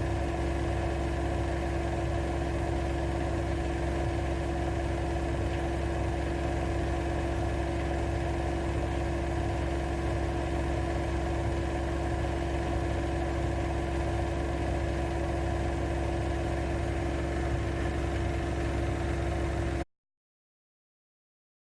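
AEG Lavamat L6FB67490 front-loading washing machine running with a steady mechanical hum and a constant motor tone, cutting to dead silence about two seconds before the end.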